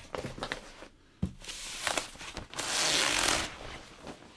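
Packaging being pulled off a new Mac Pro by hand: rustling and scraping, a sharp knock about a second in, then two sliding hisses, the second louder and about a second long.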